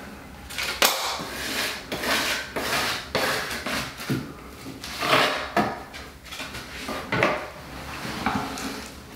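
Metal drywall taping knife scraping excess wet Hydroban liquid waterproofing membrane off a shower corner, in a series of short irregular scrapes with light metallic clinks.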